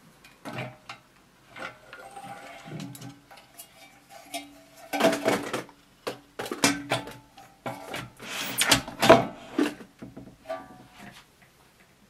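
Handling noise as the copper top plate of a homemade valve amplifier is lifted off its wooden case: a run of knocks, clanks and scrapes with brief ringing from the metal, loudest about five seconds in and again near nine seconds.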